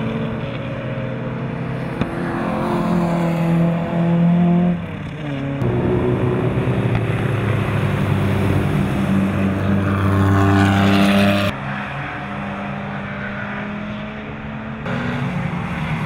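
BMW E30 325i race car's 2.5-litre straight-six engine running hard on a circuit, the pitch climbing as it accelerates. The sound changes abruptly several times where trackside shots are cut together.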